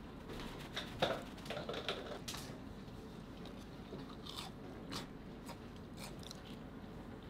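Crisp crunching of food in a series of irregular clicks and short crackles, the loudest about a second in.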